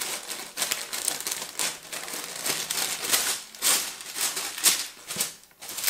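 Tissue paper being handled and folded back, rustling and crinkling in irregular bursts.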